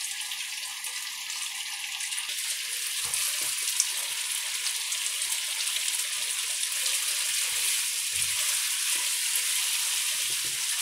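Sweet-and-sour sauce with pork ribs, cucumber and bell pepper sizzling steadily in a nonstick wok, with a few soft knocks as the pan is stirred with a spatula.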